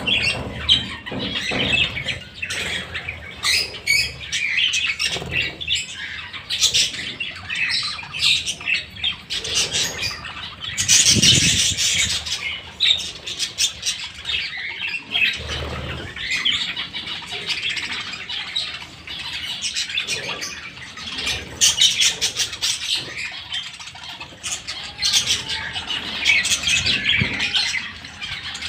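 A flock of budgerigars chattering and squawking, many high chirps overlapping without a break, loudest about eleven seconds in.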